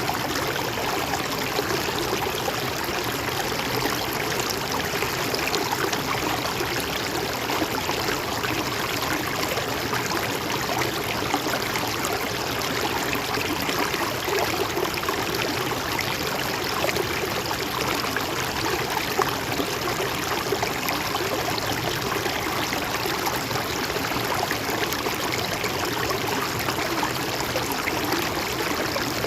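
Mountain stream flowing steadily over rocks, an even rushing babble with small trickling splashes.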